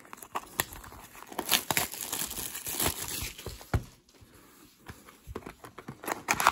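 Plastic shrink wrap crinkling and tearing as it is peeled off a sealed hockey trading-card box, in irregular crackles. There is a quieter pause about four seconds in, and the loudest rustling comes near the end.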